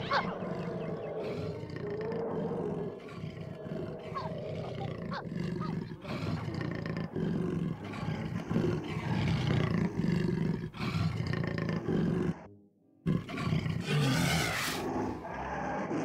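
Cartoon soundtrack of big cats roaring and growling over orchestral music. The sound runs densely, cuts out briefly about twelve and a half seconds in, then comes back with a loud burst.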